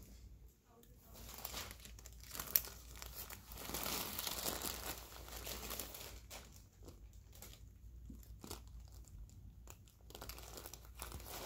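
Crinkling and rustling of the paper cover under the patient's head, swelling to its loudest about four to five seconds in, with one sharp click about two and a half seconds in.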